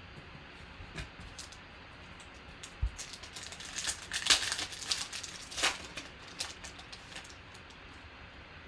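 Crinkling of a trading-card pack wrapper as it is handled and opened, a dense crackly burst lasting about three seconds from roughly three seconds in, with a few light clicks from the cards before it.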